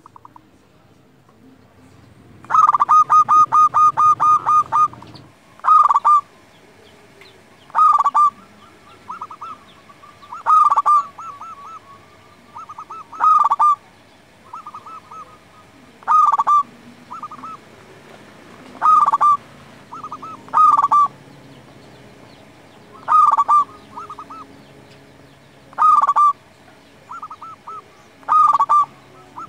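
Zebra dove (perkutut) singing its staccato cooing song. About two and a half seconds in comes a long run of quick coos. After that, short bursts of coos repeat every two to three seconds, with softer, shorter bursts between them.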